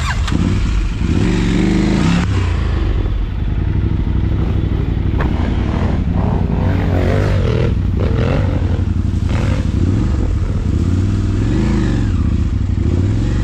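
Motorcycle engine running under way, its pitch rising and falling several times with the throttle.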